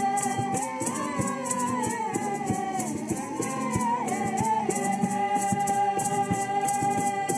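Background music: a shaker rattle keeps an even rhythm under a wavering melodic line that settles into one long held note about five seconds in.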